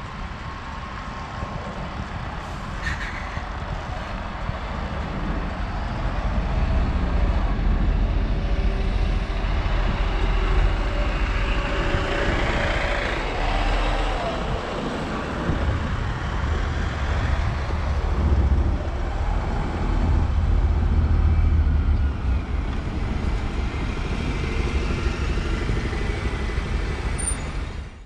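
Heavy buses and cars passing close by on a city road. A coach and a double-decker bus go by with a deep engine rumble and tyre noise, and the traffic swells about six seconds in. The sound cuts off abruptly at the very end.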